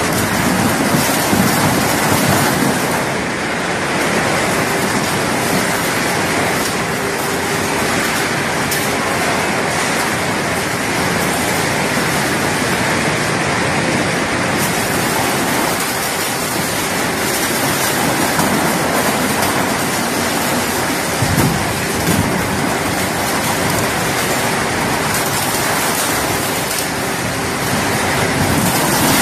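Industrial crusher machine grinding material: a loud, steady crunching, rushing noise with a faint hum of the machine under it and occasional sharper cracks.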